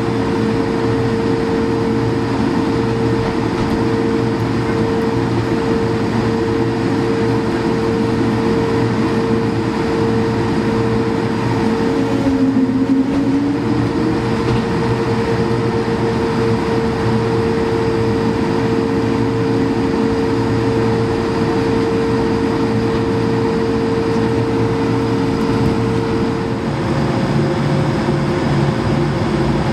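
Steady cabin hum of an Airbus A220-300 with its Pratt & Whitney PW1500G geared turbofans running, a whine-like tone held steady in the hum. Near the end the tones step up in pitch.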